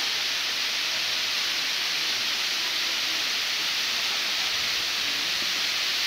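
Steady hiss of a waterfall, its water sheeting down a tall rock face.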